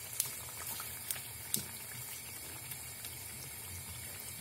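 Pepper and tomato paste frying in oil in a pan: a steady bubbling sizzle, with three sharp pops of spattering in the first couple of seconds.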